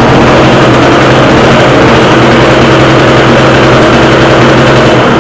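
Tiger TG950 portable generator's small two-stroke engine running steadily, its speed turned down with the governor screw to make it quieter.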